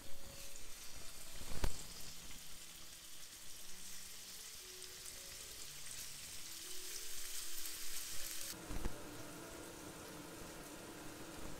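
Raw chicken breasts sizzling in hot oil in a nonstick frying pan, with a sharp knock about two seconds in. The sizzle stops abruptly after about eight and a half seconds, and a chef's knife cuts through an apple on a wooden cutting board, with a knock as the blade meets the board.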